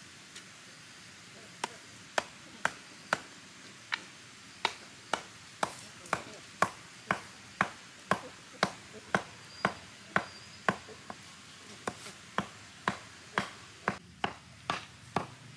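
Steady chopping with a blade: sharp strikes with a short ring, about two a second, starting about a second and a half in, with a brief pause about eleven seconds in.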